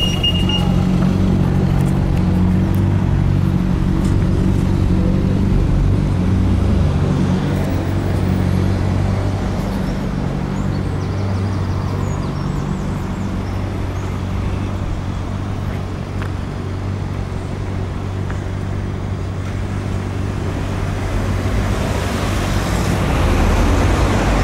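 Street traffic at a junction: a steady low hum of an idling vehicle engine with road noise from cars, swelling near the end as traffic moves. A pedestrian crossing's pulsed beeping stops within the first second.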